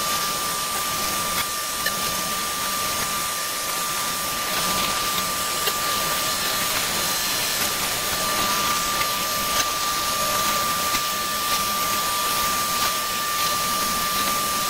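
Onefinity CNC router's spindle running with a steady high whine and hiss as the bit mills a cherry wood chess piece.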